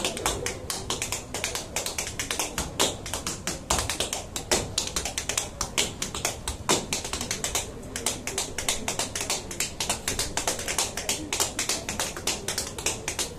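Tap shoes striking a wooden floor in a rapid, improvised tap-dance rhythm: dense runs of sharp taps, several a second, with occasional harder accented strikes.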